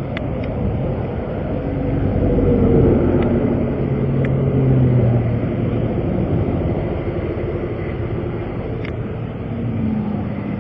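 Interstate traffic going past: a steady road rumble that swells twice as vehicles pass close by.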